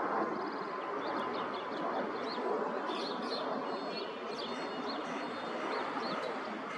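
Steady hum of city traffic, with small birds chirping in quick, high notes over it.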